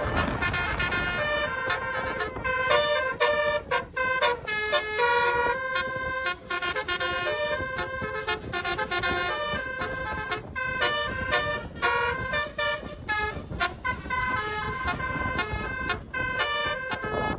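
Bus telolet horns, multi-trumpet air horns, playing rapid melodic tunes: many short tones step from pitch to pitch, several at once, over a steady noisy rumble.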